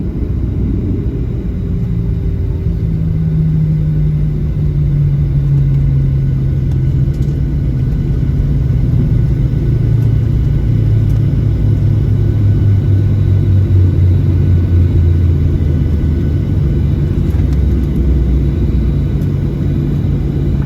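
Boeing 737-700 cabin noise while the jet slows on the runway after landing: a loud low rumble, with the CFM56 engines' tones falling steadily in pitch as they spool down.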